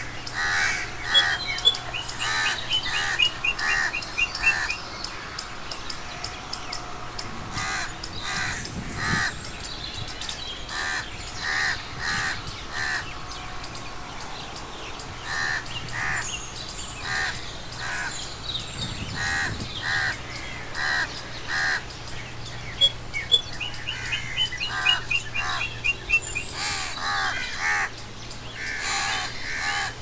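Crows cawing repeatedly in short bouts. Twice, a rapid run of high chirps joins them.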